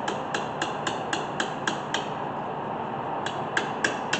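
Socket ratchet clicking as a brake caliper bolt is turned with a 9 mm socket: about four sharp clicks a second for two seconds, a pause, then a few more near the end.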